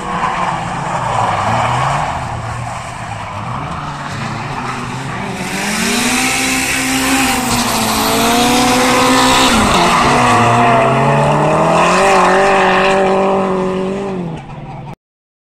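Two drift cars sliding in tandem, engines revving up and down while their tyres squeal. The squeal grows loudest midway as the cars pass close, then the sound cuts off suddenly near the end.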